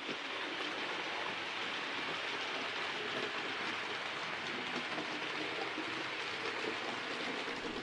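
OO gauge model train, an A4 locomotive hauling Mk1 coaches, running past on the track: a steady fine rattle of wheels on rails that begins to tail off at the very end as the train passes.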